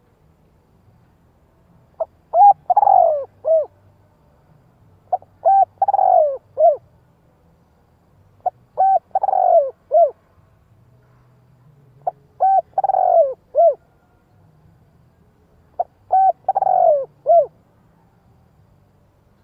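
Spotted dove cooing: five repeated phrases every three to four seconds. Each phrase is a short opening coo, a quick pair of notes, a long falling rough note, and a short final note.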